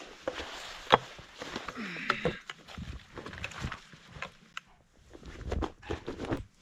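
Footsteps crunching in deep snow, an irregular run of steps and knocks with one sharp knock about a second in.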